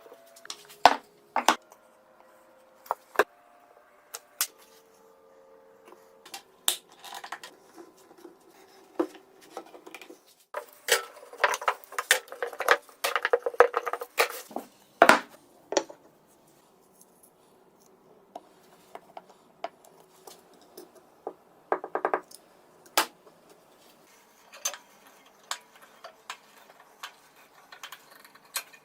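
Metal parts clinking, knocking and rattling as they are handled and worked, with brief ringing tones near the start, a dense stretch of clatter about halfway through, and a quick run of even clicks later on.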